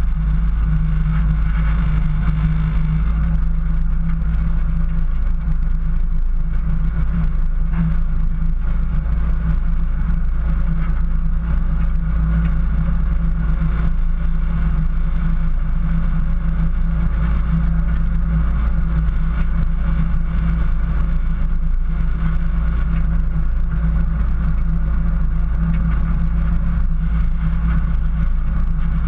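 A 4x4's engine running steadily as it drives through snow, heard close up from the hood: an unchanging deep drone with no revving.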